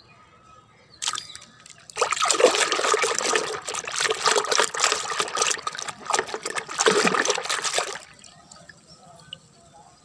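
Soapy water sloshing and splashing in a plastic bucket as a hand swishes and scrubs a plastic toy animal in it: a short splash about a second in, then about six seconds of continuous swishing that stops suddenly near the end.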